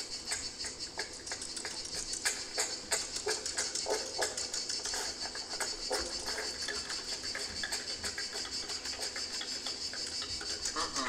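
Electronic playback from an interactive sound installation: a steady, dense, high-pitched texture of rapid ticking or chirping, with a few louder clicks among it.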